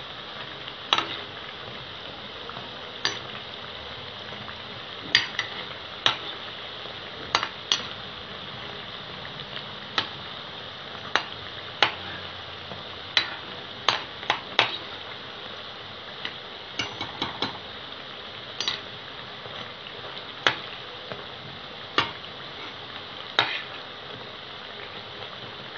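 Urad dal vadai deep-frying in hot oil in a kadai, a steady sizzle, with irregular sharp metallic clinks every second or two as a steel spoon turns the fritters against the pan.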